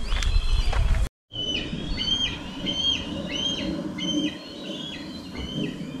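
A bird calling over and over: a run of about eight short, high calls, roughly three every two seconds. In the first second, before the calls begin, there is a loud low rumble that cuts off abruptly.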